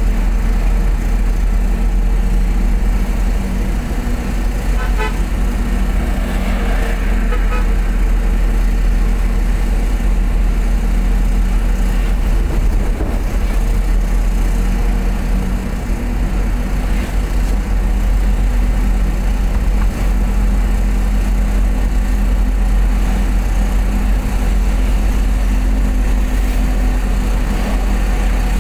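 Steady engine hum and low road rumble of a vehicle driving along a road, with a brief horn toot about six to seven seconds in.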